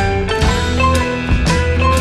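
Background music with a drum beat and held melodic notes.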